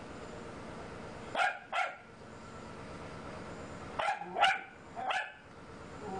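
A dog barking: two barks in quick succession, a pause, then three more.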